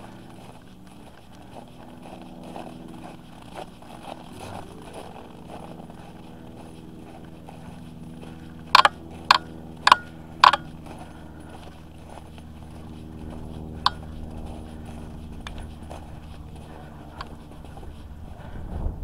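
Footsteps in microspikes crunching on packed snow, with trekking-pole taps, over a steady drone of distant snowmobile engines. About halfway through come four sharp clicks about half a second apart, then one more a few seconds later.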